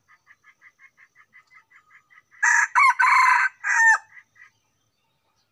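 F1 junglefowl-cross rooster crowing once, about two and a half seconds in: a short, clipped crow of about a second and a half, in several broken parts. Faint chirping repeats about five times a second before it.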